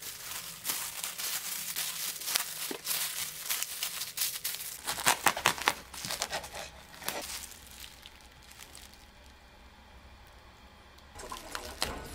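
Translucent sandwich-wrapping paper crinkling as it is folded tightly around a stacked burger, with the loudest, sharpest crackles about five seconds in as a knife cuts through the wrapped sandwich on a wooden board. Quieter paper rustles follow.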